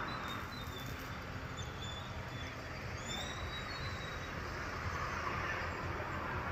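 Steady outdoor background noise: a low rumble with a hiss on top, and a few faint, short high chirps.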